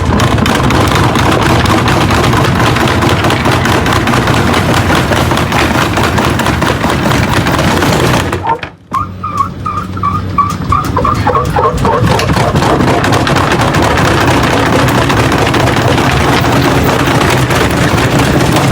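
A washing machine running hard in a violent spin, a loud steady mechanical noise. About eight and a half seconds in it drops out briefly, then a warbling tone sounds for a couple of seconds before the noise comes back up.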